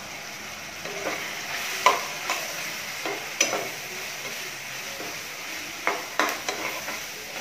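Chicken, onion and carrot frying in oil in a kadai (wok), sizzling steadily, while a metal spatula stirs them, scraping and knocking against the pan several times.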